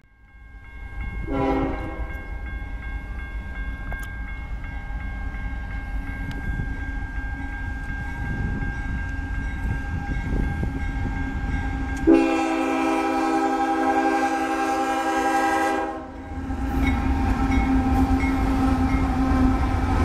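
Air horn of a Union Pacific GE ES44AC diesel locomotive leading a freight train, sounded for a grade crossing: a short blast about a second and a half in, then a long blast of about four seconds from about twelve seconds in, over the steady rumble of the approaching train. Near the end the locomotives' engines and wheels rumble past close by.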